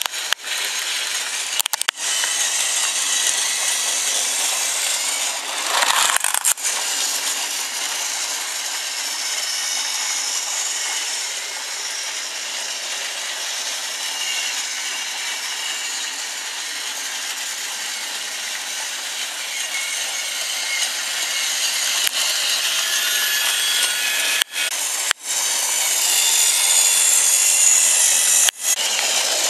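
Battery-powered Trackmaster toy train's small electric motor running steadily, a high grinding whir, broken by a few short gaps and growing louder over the last several seconds.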